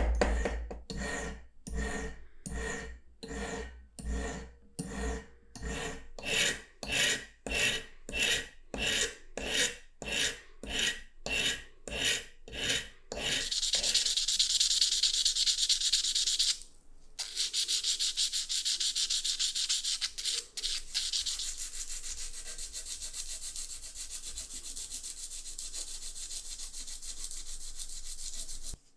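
Steel hammer tapping the awl's steel shank on a metal block in a regular series of light strikes, about one and a half a second, straightening the curved shank. After about thirteen seconds the strikes give way to steady rubbing as the steel awl point is sharpened on abrasive paper, with a short pause partway through.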